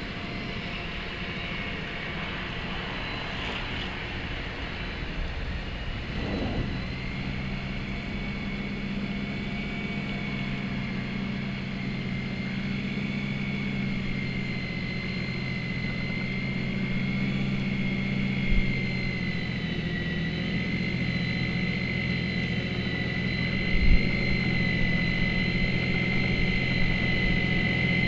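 Snow Joe snow blower running steadily while throwing snow, a high whine over a low hum, growing louder as it comes closer. Two brief knocks, one about two-thirds of the way in and one a few seconds later.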